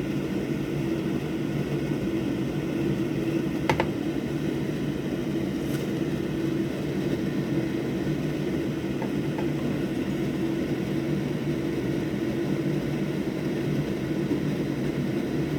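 Steady motor hum from electronics-repair bench equipment running throughout, with one sharp click about four seconds in.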